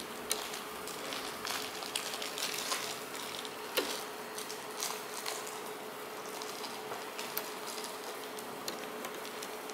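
Scattered small clicks of a plastic hook and rubber bands against the pegs of a plastic loom, over a steady hiss and a faint steady hum.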